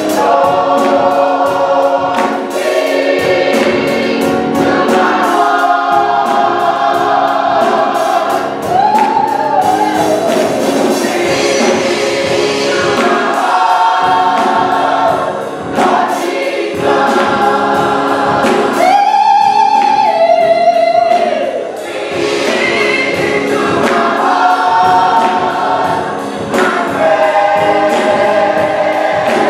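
Gospel choir singing in harmony, with long held notes and a few lines that slide up and down in pitch.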